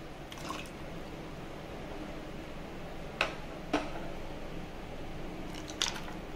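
Thick raw-mango drink (aam panna) being poured into a glass over ice cubes, with a few sharp clinks.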